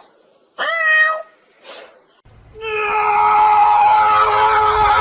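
A kitten meows once, a short call that rises and then levels off, a little over half a second in. About two and a half seconds in, a long note steady in pitch begins over a low hum and is held to the end; it is the loudest sound.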